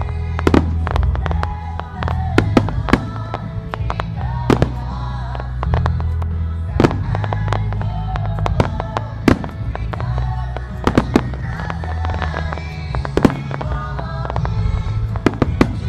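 Aerial fireworks shells bursting in quick succession, sharp bangs and crackles every second or so, over loud music with a steady low bass line and a melody.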